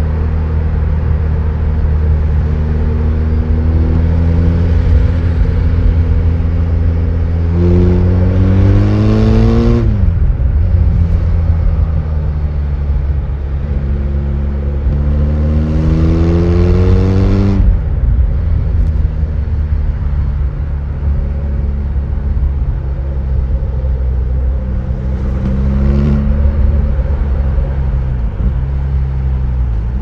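BMW R 1250 GS Adventure's 1254 cc boxer-twin engine and exhaust running while the bike is ridden at highway speed. The engine note climbs twice as the throttle is opened and falls off sharply each time, about ten and about eighteen seconds in. A smaller climb comes near the end.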